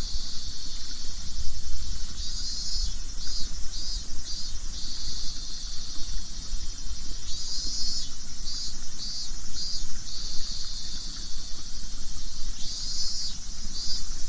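Robust cicada (minmin-zemi) singing: phrases of pulsing high 'miin-miin' notes that come back about every five seconds, over a steady high insect drone.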